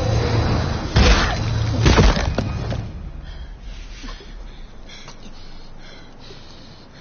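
Film sound effects of a violent attack on a body: two heavy crunching thuds about a second apart, then the sound dies away with a few small scattered noises.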